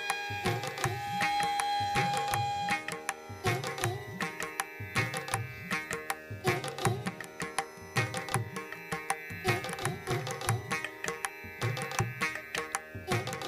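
Indian-style background music with tabla drumming in a steady rhythm under sustained melodic tones.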